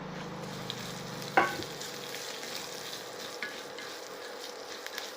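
Tempering of curry leaves, mustard seeds, urad dal and cumin sizzling and crackling in hot fat in a small pan, with a single sharp knock about a second and a half in.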